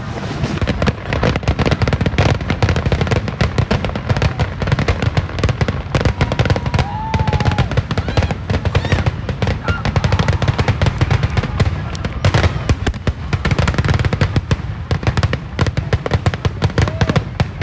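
Aerial fireworks bursting in a rapid, unbroken barrage: many booms and crackles a second, with a few faint whistles rising through them.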